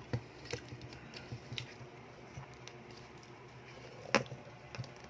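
Handling noise from a phone being fitted onto a tripod: scattered light clicks and taps, with one louder knock about four seconds in.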